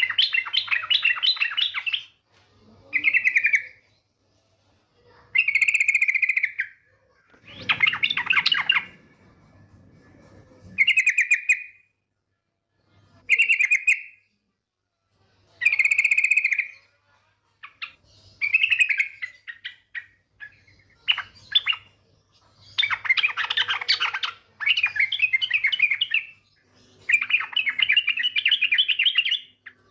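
Yellow-vented bulbul (trucuk) calling in bursts of rapid, chattering trills, each a second or two long, repeated with short pauses; presented as a female's call to draw a male into song. A faint steady hum runs underneath.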